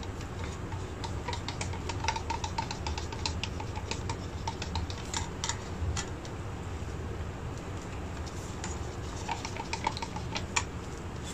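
Wooden craft stick stirring acrylic paint and pearlescent medium in a plastic cup: a scatter of small clicks and taps as the stick knocks the cup's sides, over a low steady hum.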